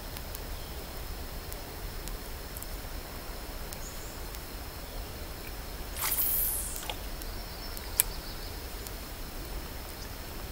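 Quiet riverbank outdoor ambience with a steady faint high tone, broken by a short swishing rush about six seconds in and a single sharp click about two seconds later, from a fishing rod and reel being handled.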